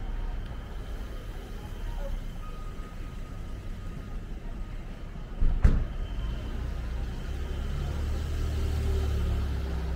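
Street traffic: a low rumble of motor vehicles, with one sharp thump about five and a half seconds in and a louder vehicle rumble passing in the last few seconds.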